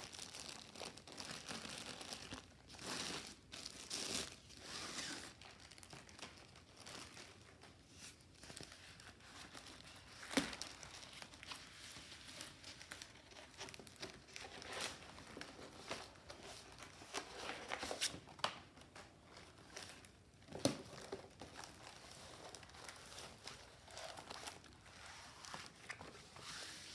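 Plastic wrapping crinkling and a rolled canvas and its paper backing sheet rustling as they are unwrapped, unrolled and smoothed by hand. The rustling is faint and uneven, with a few sharper crackles.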